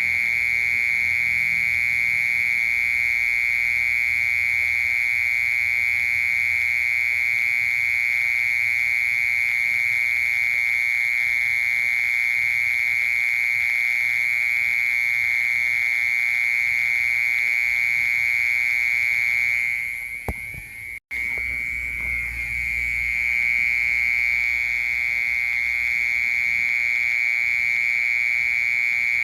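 Cricket-type insect singing a continuous, steady high-pitched trill. The song breaks off briefly about twenty seconds in, with a click, and resumes about two seconds later.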